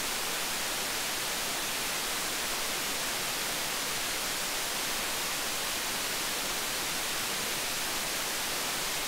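Steady, even hiss: the amplified self-noise of an RC4560 dual audio op amp in a gain-of-101 test circuit, which reads about −77.5 dB on the noise meter.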